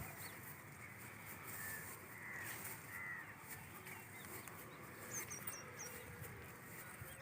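Birds calling faintly over quiet rural background noise: a couple of short calls a little past two seconds in, then a quick run of four high chirps about five seconds in.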